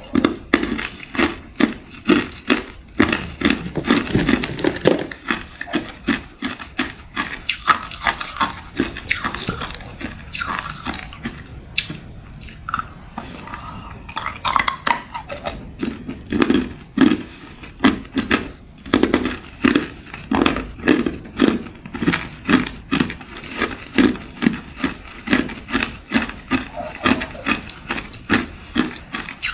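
Hard clear ice cubes crunched between the teeth: a long run of sharp cracking crunches, about two a second.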